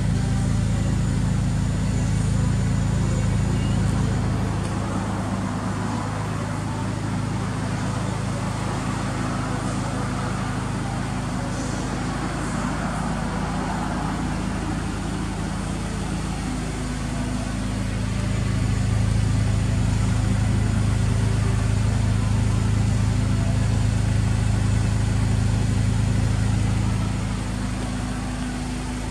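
Honda Accord Euro R's K20A 2.0-litre four-cylinder idling steadily through a Mugen titanium muffler, a low, even exhaust note.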